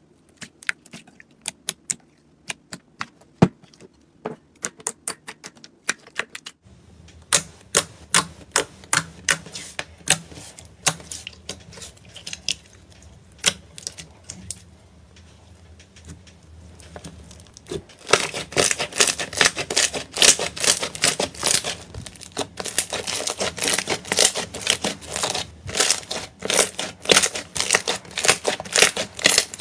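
Hands pressing and squeezing slime, making sharp wet clicks and pops as air pockets burst. The pops are sparse at first, come thicker after a few seconds, and turn into a fast, louder crackle over the last third.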